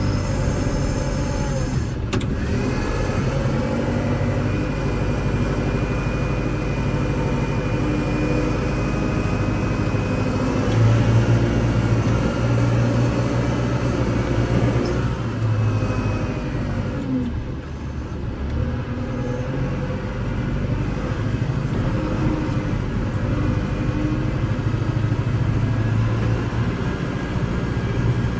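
Kubota L6060 tractor's diesel engine running steadily while plowing, its pitch shifting up and down as engine speed changes. It gets louder for several seconds around the middle.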